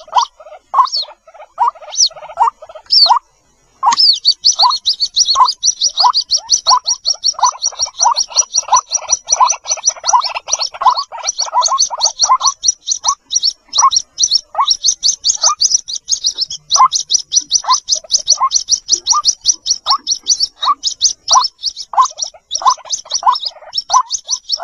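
White-breasted waterhen chicks peeping for their parent: a rapid string of thin, high peeps over a series of lower single notes. The lower notes come thick and fast at first and then settle to about one or two a second. There is a brief break about three and a half seconds in.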